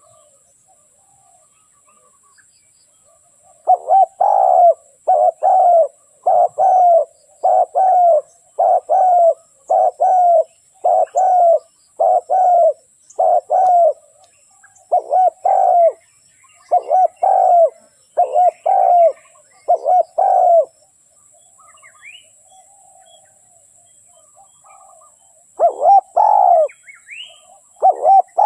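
Dove cooing: a long run of short, repeated coos, each bending in pitch, that starts about four seconds in, breaks off at about twenty seconds and starts again near the end.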